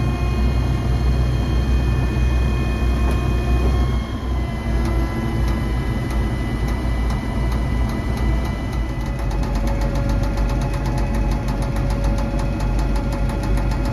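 Liebherr LTM 1250-5.1 mobile crane running under load as it holds and moves a suspended personnel basket: a steady low diesel engine hum with several thin high whining tones that shift about four seconds in, heard from inside the operator's cab.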